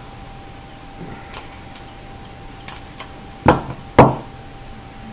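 Handling noise from fingers working the wire ends of a Cat5e cable: a few faint ticks, then two sharp clicks about half a second apart.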